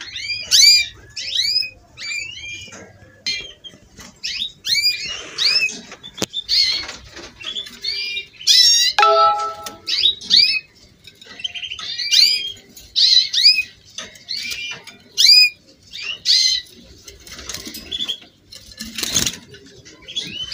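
Domestic canaries singing, with quick runs of repeated chirping notes and trills that come and go, and one short held note about nine seconds in. A brief rustling burst comes near the end.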